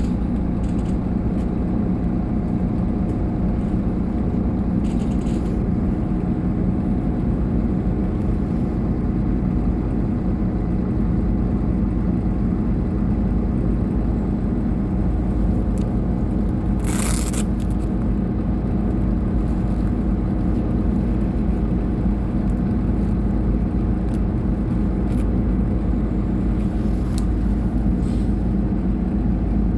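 Solaris Urbino 18 III articulated bus's engine idling steadily, heard from inside the passenger compartment. A short hiss sounds about halfway through.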